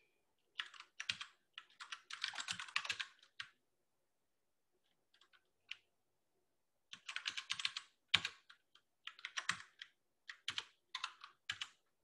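Computer keyboard typing in quick runs of keystrokes, with a lull of a few seconds in the middle.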